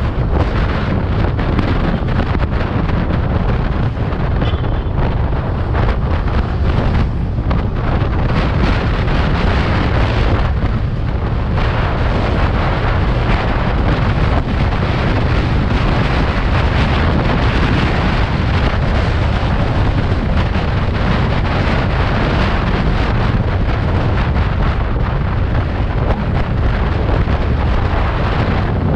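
Loud, steady wind buffeting on the microphone of a scooter ridden at about 75–90 km/h, drowning out the engine and road sound.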